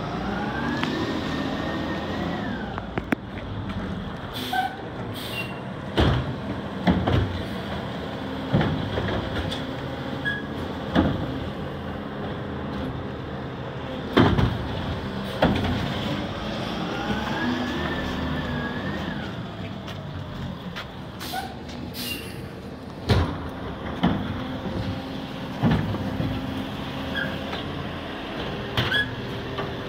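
International Labrie Automizer automated side-loading garbage truck at work: the engine runs steadily while the hydraulic arm's whine rises twice. There are repeated clunks and bangs as the arm grabs, lifts and tips wheeled garbage carts into the hopper.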